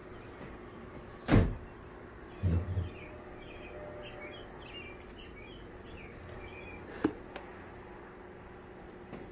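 Handling noise from gluing a subwoofer cone by hand with a squeeze bottle of CA glue: a sharp knock about a second in, a couple of softer low bumps just after, and a short click near the end. Faint high chirps and a low steady hum sit underneath.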